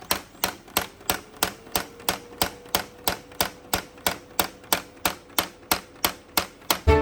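A steady run of sharp, evenly spaced clicks, about three a second, over a faint held tone; music comes in at the very end.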